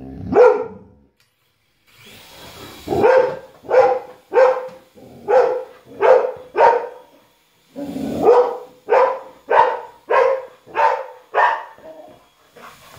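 A dog barking repeatedly: one bark near the start, then two quick runs of about six barks each, roughly one and a half barks a second, with a short pause between the runs.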